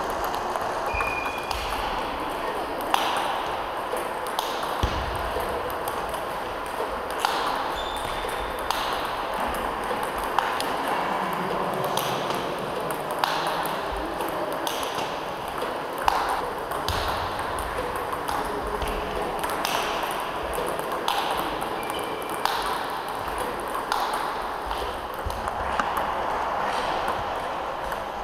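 Table tennis balls clicking off the table and off rubber bats in a steady run of quick, sharp clicks. The balls are fed by a table tennis ball robot.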